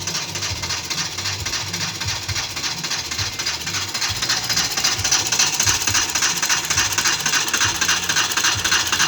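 Car engine being cranked on the starter without catching: a fast, steady mechanical clatter that stops suddenly as the key is let go. The engine has overheated and now cranks but will not start.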